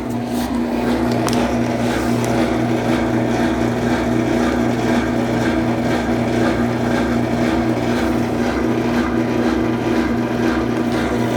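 Consul Facilite 10 kg CWC10 washing machine running in its wash cycle with a steady motor hum over a pulsing low rumble; the machine's mechanism has been freshly overhauled.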